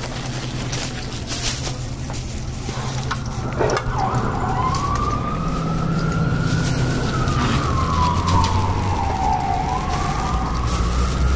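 Emergency vehicle siren wailing, starting about four seconds in with one slow rise and fall in pitch and then rising again near the end, over a low steady rumble. A single knock comes just before the siren begins.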